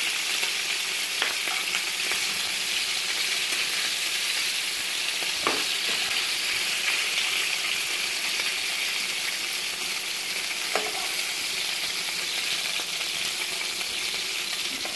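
Pork ribs frying in hot oil in a pan: a steady sizzle, with three brief knocks about 1, 5.5 and 11 seconds in.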